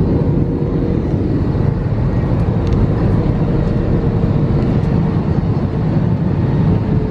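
Steady low roar of jet-airliner cabin noise in flight: engine and airflow noise heard from inside the passenger cabin, with a faint steady hum above it.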